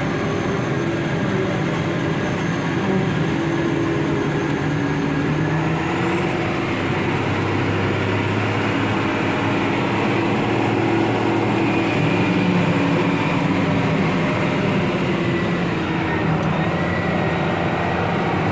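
Tractor engine running steadily, its note shifting slightly a few times, with a faint high whine above it that rises about six seconds in and falls away after about thirteen.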